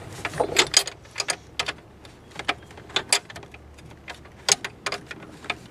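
A 7/8-inch wrench tightening an oxygen sensor into the exhaust manifold, making irregular sharp clicks and clinks, some in quick clusters.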